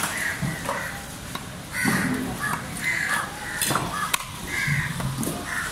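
Crows cawing repeatedly, with a few sharp knocks in between.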